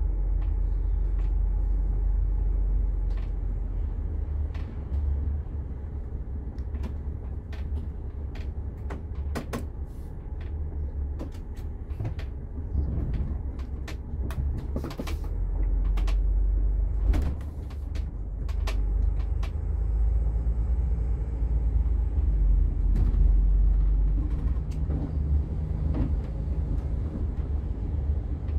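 Setra S 416 UL Business coach's diesel engine and drivetrain heard from inside the cabin near the front as it drives off at low speed. A deep rumble swells and eases with the throttle, and scattered sharp clicks come through over it.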